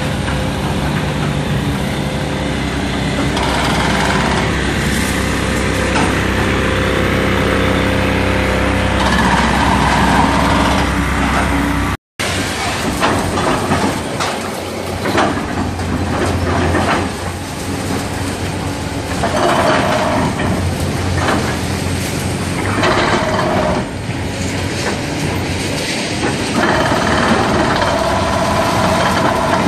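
Diesel engine of heavy construction machinery running steadily. After a cut, a Caterpillar 320D hydraulic excavator's engine runs under repeated knocks and crashes of concrete breaking and rubble falling as it demolishes a building.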